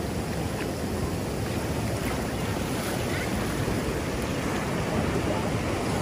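Waves breaking and washing up over sand in a steady rush of surf.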